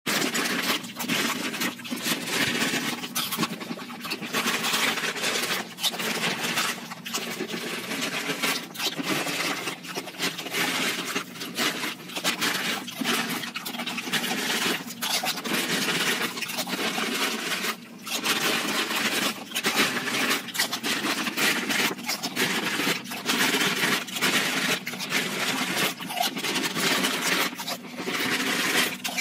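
Close-up crunching of chips being chewed, played at five times normal speed so the bites run together into a rapid, almost continuous crackle with many sharp clicks.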